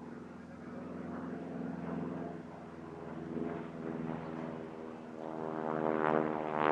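North American Harvard trainer in flight, its radial engine and propeller giving a steady buzzing drone that grows much louder over the last second or two as it comes closer.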